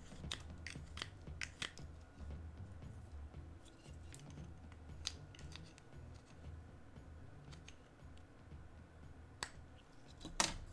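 Faint scraping and small clicks of a WE Knife Co. Banter pocket knife's blade carving into a hard plastic Lego brick, with a sharper click near the end.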